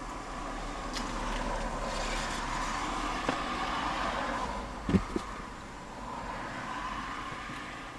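A car driving by in a parking lot, its engine and tyre noise swelling and then easing off, heard from inside a parked car over a steady low hum. Two short blips about five seconds in.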